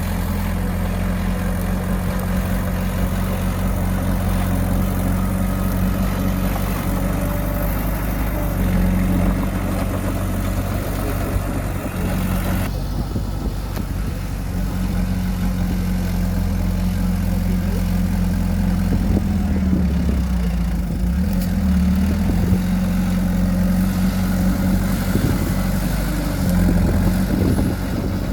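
Heavy machine's engine running steadily with a low, even hum. The sound changes abruptly about halfway through, and the pitch of the hum shifts a little later on.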